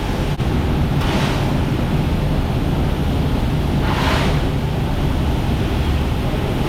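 Steady low machinery drone with a rushing hiss over it, the hiss swelling briefly three times: about a second in, around four seconds, and at the end.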